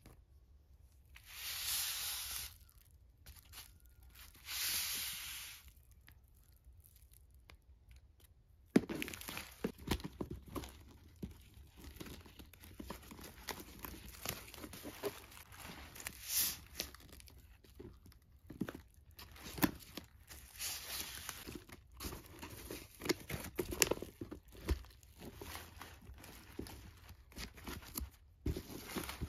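Packing paper rustling and crinkling as it is handled inside a new handbag, with scattered sharp clicks and knocks. Two short rustles in the first few seconds, then continuous crinkling from about nine seconds in.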